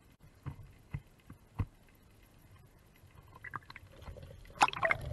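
Water sloshing and slapping at the surface: a few short, low slaps in the first couple of seconds, then louder splashing about four and a half seconds in.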